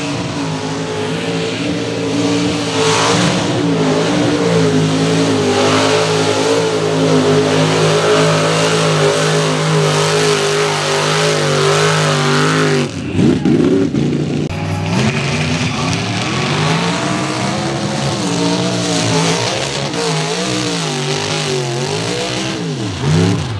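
Modified mud racing truck engines running hard at high revs. For about the first thirteen seconds one engine is held at fairly steady revs. After a sudden break the revs rise and fall over and over as a truck works through the mud holes.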